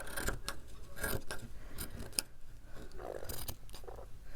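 Scissors snipping: several separate cuts, each a short sharp snip.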